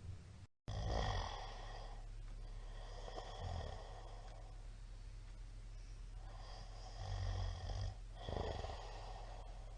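A sleeping middle-aged man breathing noisily with soft snores: about four slow, hissy breaths a couple of seconds apart. The sound cuts out completely for a moment near the start.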